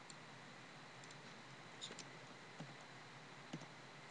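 Near silence, with about five faint, sharp computer clicks spread through the middle and end while cells are selected and copied in a spreadsheet.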